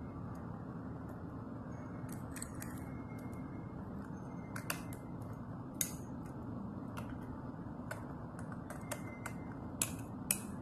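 Light, scattered clicks and taps of small plastic parts: a miniature toy waste cart being handled and set against a scale-model garbage truck's rear tipper. About a dozen clicks, the sharpest around five seconds in and near the end, over a steady faint hiss.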